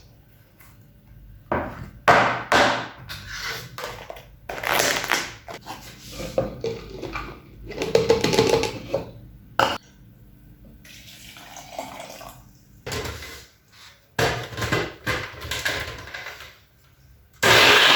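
Kitchen work with water and dishes: irregular splashing and pouring sounds with handled bowls or utensils. Near the end a short, loud, steady rush starts and cuts off suddenly.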